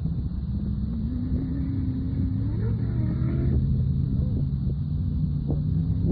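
Sand rail engine running with a steady low rumble, with a brief rise and fall in revs near the middle.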